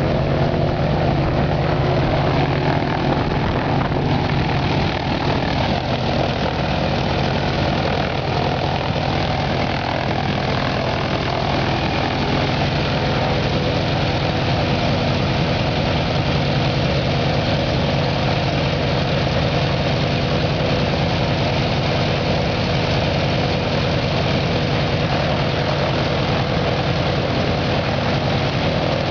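Jacobs R-755 seven-cylinder, air-cooled radial aircraft engine running steadily on a ground-run stand, its propeller turning.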